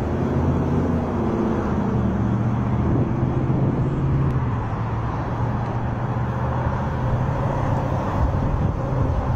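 A steady rushing noise with a low, steady mechanical hum underneath.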